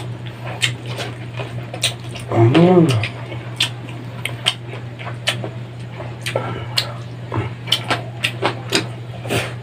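Close-up eating sounds from a person eating rice, noodles and grilled chicken by hand: irregular wet clicks and smacks of chewing and fingers working the food, over a steady low hum. About two and a half seconds in, a short pitched call rises and falls.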